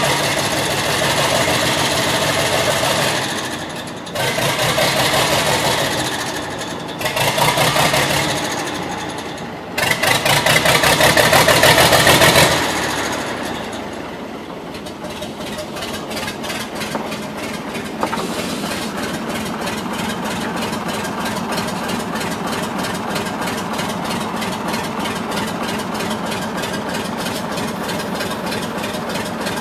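The diesel engine of a 1961 Hudswell-Clarke 0-6-0DM narrow-gauge locomotive running, revved in four bursts of a few seconds each as the locomotive moves off, then settling to a steady, lower running beat.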